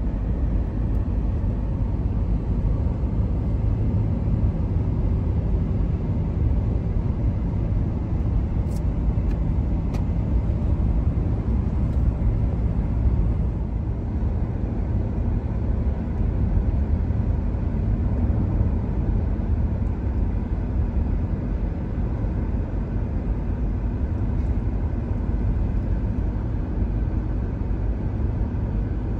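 Car travelling at highway speed: a steady low rumble of tyre, road and engine noise.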